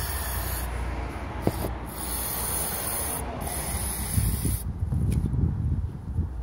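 Aerosol carburettor cleaner hissing out through its straw nozzle into a throttle body in four bursts with short breaks, to loosen carbon deposits around the throttle valve. The spraying stops about four and a half seconds in, and low rubbing noises follow.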